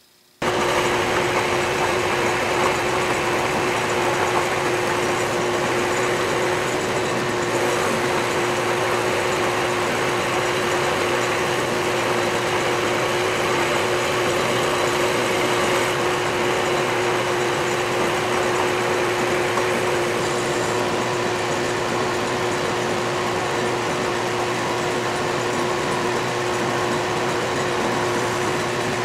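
Metal lathe running under a cut, the tool plunge-cutting and feeding back and forth to neck a 5/8-inch round bar down to 5/16-inch diameter. A steady machine hum with one constant tone runs under a rough, hissy cutting noise.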